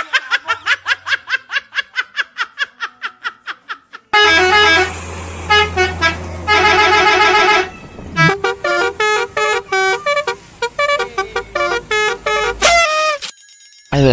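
Telolet bus horn, a multi-tone musical horn, playing tunes. First comes a fast run of short toots that fades away, then a few held chords of several notes at once, then a quick sequence of changing notes that stops about a second before the end.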